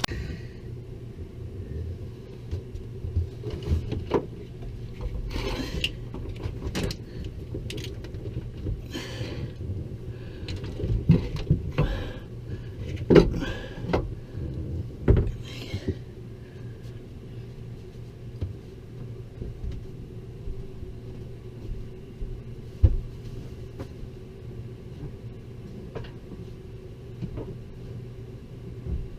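Hand tools and bolts clinking and scraping on metal while the starter motor is fitted to the diesel engine: many short knocks in the first half, only a few later, over a steady low hum.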